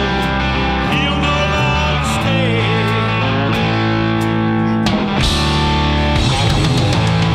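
Rock band playing live, an instrumental passage led by electric guitar. The band comes in heavier and fuller about five seconds in.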